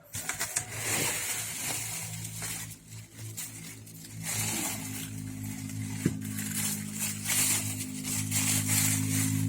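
Rustling and handling noise of wheel packaging being worked with, with scattered clicks and a single sharp tap about six seconds in. Background music with low sustained notes comes in about halfway through.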